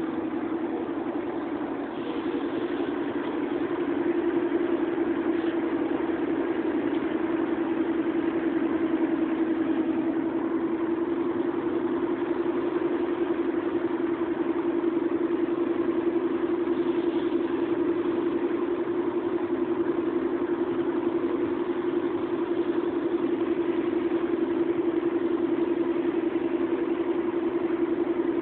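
Steady hum of a car heard from inside its cabin while driving slowly, engine and road noise together with one even drone. It grows a little louder in the first few seconds, then holds level.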